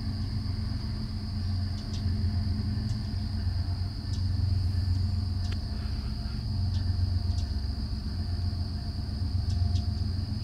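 Diesel locomotives at the head of a loaded coal train rumbling as they approach: a steady low rumble that swells and eases a few times. A steady high insect drone runs underneath.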